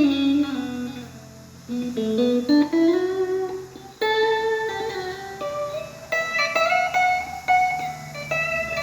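Squier Classic Vibe '70s Stratocaster electric guitar on a clean tone, played as a single-note melody of plucked notes with bends and slides between some of them.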